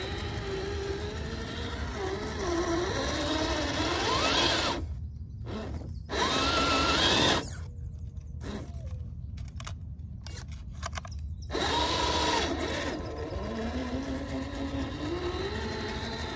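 Brushed electric motor and geared drivetrain of a 1/7-scale Rlaarlo MK-07 RC crawler whining as it climbs in sand with the front diff locked, the pitch rising and falling with the throttle. It gives three louder full-throttle bursts, about four, six and twelve seconds in, and goes nearly quiet between them when the throttle is released.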